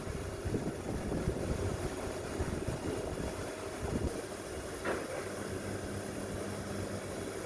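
CNC machine running with a steady mechanical hum and rumble. There is a brief falling sound about five seconds in, after which a steady low tone joins the hum.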